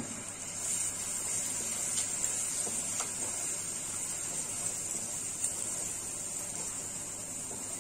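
Turmeric and red chilli powder frying in hot oil in a non-stick kadai, giving a steady sizzling hiss, with a wooden spatula stirring the bubbling paste and a few faint scrapes against the pan.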